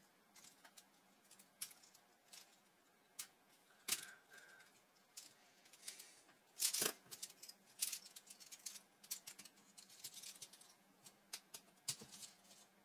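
Plastic LEGO Technic pieces clicking and rattling as they are handled and pressed together: scattered small sharp clicks, with a short cluster of louder ones a little past the middle.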